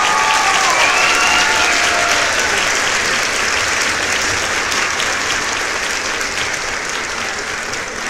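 Crowd applause: many hands clapping in a dense, even patter that slowly fades. A few high gliding calls ride over it in the first two seconds.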